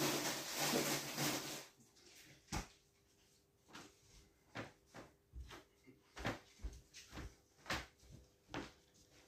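Faint household movement: a brief rustle, a sharp knock like a cupboard door, then footsteps on the floor about twice a second, coming closer.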